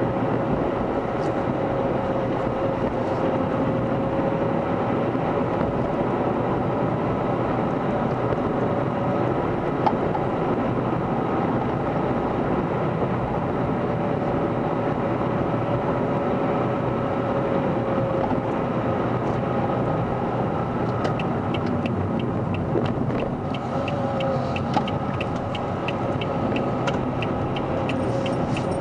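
Car driving slowly, heard from inside the cabin: steady engine and road rumble with a faint steady whine. About two-thirds of the way through, a regular ticking starts, a little over two ticks a second.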